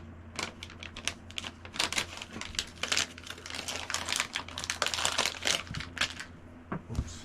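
Plastic packaging and small plastic parts being handled and opened by hand: a dense, irregular run of sharp clicks and crinkles.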